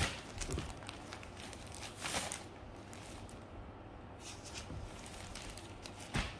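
Handling noise while clothing is unboxed: a few sharp clicks and knocks, with a short rustle about two seconds in, over a low steady hum.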